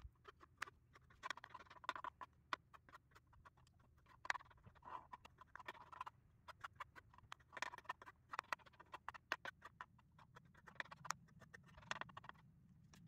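Knife chopping peeled boiled eggs on a plastic cutting board: faint, quick, irregular taps of the blade against the board.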